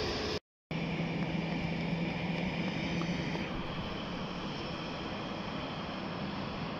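Distant aircraft engines running across an airport, a steady rushing noise with a low hum that fades out a little after three seconds, after a brief dropout near the start.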